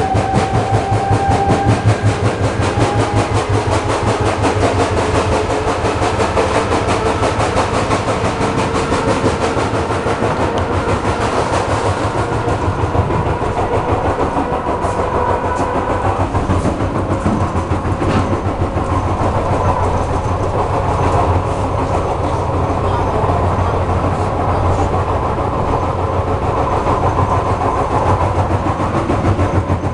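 An ER2R electric train's carriage running with a fast, steady knocking from its bogie, a strange knock whose cause is unknown. A whine rises slowly in pitch over the first half as the train gathers speed.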